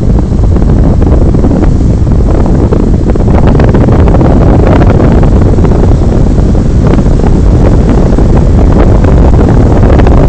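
Strong wind buffeting the phone's microphone, a loud, steady rumble, with the wash of breaking surf beneath it.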